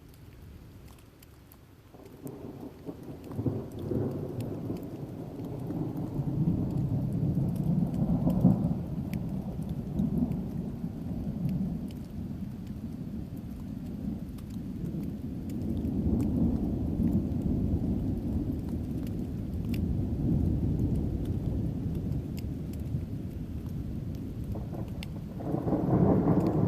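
Thunder rolling: a low rumble builds about two seconds in and runs on for over twenty seconds, swelling and fading, and a new peal breaks near the end. Faint raindrop ticks are heard throughout.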